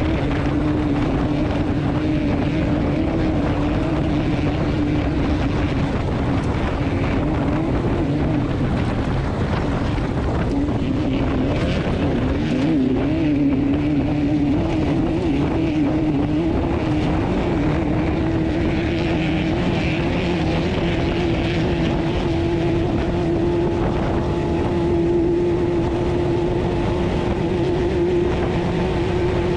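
Class 12 off-road race car engine running steadily under load. Its note wavers in pitch for a while midway, then holds steadier and slightly higher near the end.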